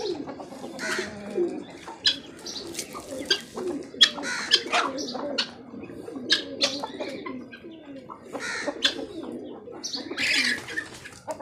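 Pigeons cooing, mixed with short chirps and calls from chickens and guinea fowl feeding on the ground, and many brief sharp clicks scattered through.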